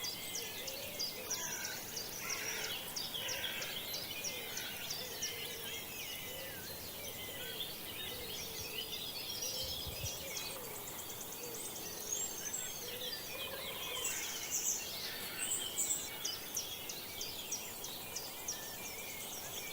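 Many songbirds singing at once in a spring morning chorus: overlapping chirps, trills and rapid high notes over a steady background hiss.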